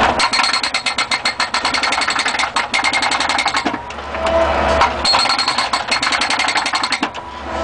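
Hydraulic concrete breaker on a skid-steer loader hammering rapidly, about ten blows a second, in two runs of a few seconds each, breaking blacktop. Between the runs the loader's engine runs steadily.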